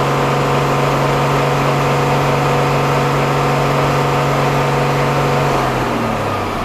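Tata Signa 5523 truck's Cummins diesel engine held steady at full revs in a free-rev test, then released about five and a half seconds in, the revs falling back toward idle near the end.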